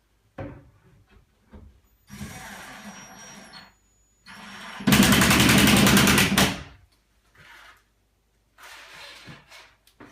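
A power drill driving screws: a softer run of about a second and a half, then a louder run of about a second and a half with a fast, even rattle, with a few small knocks around them.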